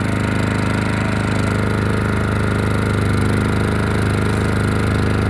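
3,600-watt portable generator engine running at a steady speed while it powers a 6,000 BTU window air conditioner.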